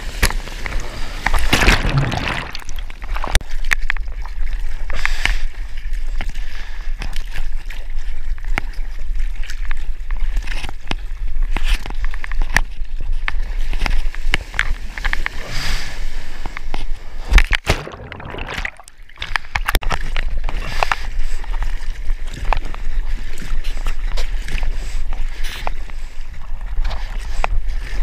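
Seawater rushing and splashing around a surfboard, heard close up through a mouth-mounted GoPro: churning whitewater at first, then the irregular splashes of hand-paddling strokes, over a steady low rumble.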